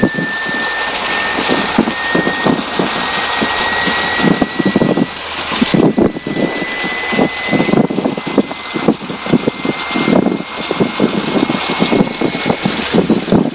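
Rolls-Royce Merlin V12 engine of a Hawker Hurricane running steadily with the aircraft standing on the ground, heard from inside the open cockpit with a loud, constant engine noise and uneven fluttering from the propeller wash. A faint high whine rises slowly in pitch through it.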